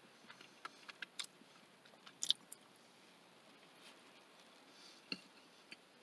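A person chewing a soft-baked oatmeal raisin cookie with the mouth closed: faint, scattered small wet clicks, with a slightly louder cluster about two seconds in.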